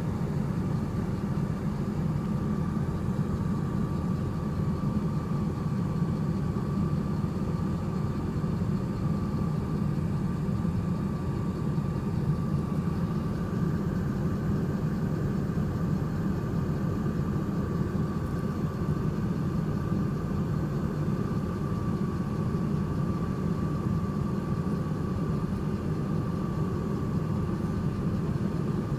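A steady, unbroken machine hum, strongest in the low range, with a thin steady whine above it.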